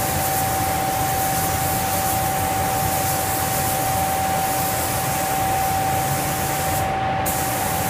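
Gravity-feed paint spray gun spraying compressed air and paint in a steady hiss, with a steady whistle running under it. The hiss briefly thins about seven seconds in.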